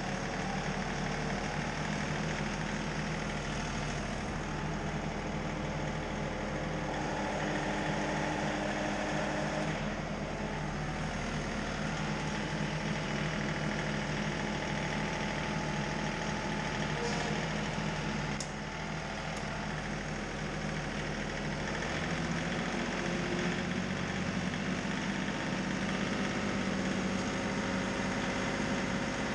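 Tractor engine running steadily, its pitch shifting slightly now and then.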